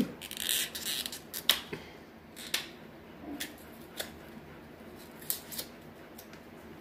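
A small plastic cosmetic item handled in the fingers: a handful of irregular sharp clicks and light rustling as it is turned over and fiddled with.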